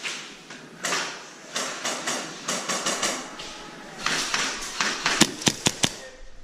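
Airsoft guns firing: a quick string of about five sharp shots about five seconds in, after a stretch of irregular, scuffling noise.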